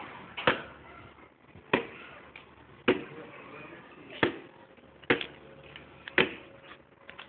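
A series of sharp taps about once a second, six or seven in all: metal pliers knocking against a plastic jar.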